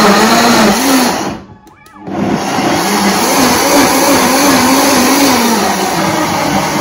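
Vitamix blender running at high speed, puréeing beetroot and carrots in water, its motor pitch wavering as the load churns. It drops out briefly about a second and a half in, then starts again.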